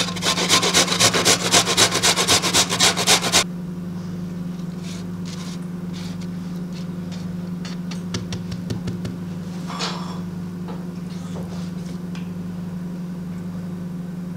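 Fresh ginger root rubbed hard against a stainless-steel box grater: rapid rhythmic rasping scrapes, about four loud strokes a second, that stop abruptly about three and a half seconds in. After that only faint clicks and taps sound over a steady low hum.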